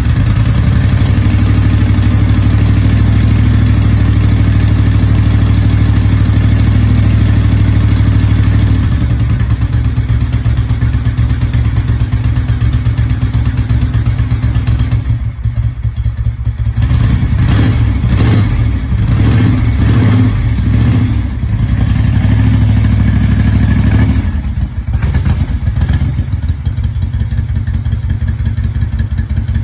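Moto Guzzi V-twin motorcycle engine running just after a cold start on choke, holding a steady fast idle at first. About nine seconds in the idle loosens into an uneven beat, with a rougher, lower patch in the middle.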